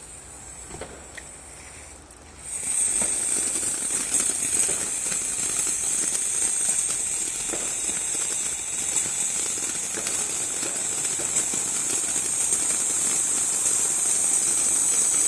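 A ground fountain firework: its lit fuse burns quietly, then about two and a half seconds in the fountain catches and sprays sparks with a steady, loud, high hiss.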